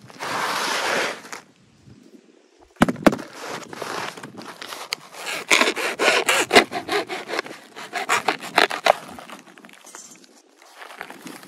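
Foam packing sheet being cut with a small blade and torn open, rasping and scraping with sharp clicks and rustles. A short rasp comes first, then a busier run of cutting and tearing that eases off near the end.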